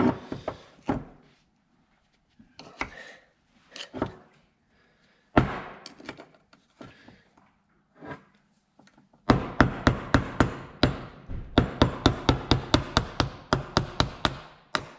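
Metal knocks on a screwdriver driven into a single-piston Nissan GQ Patrol brake caliper to push the piston out through the brake-line hole. A few scattered knocks come first, then from about two-thirds of the way through a rapid run of strikes at about four a second.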